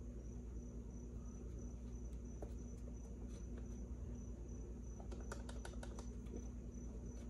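Faint, light metal clicks from a Mercury 150 outboard's crankshaft and connecting rods as the crankshaft is rocked back and forth by hand, a check for loose rods. The clicks come thickest near the end, over a steady hum.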